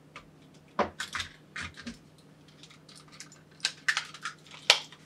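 Irregular sharp plastic clicks and small knocks as a Logitech G703 wireless mouse is handled and pressed back together during reassembly, with tweezers set down on the work mat.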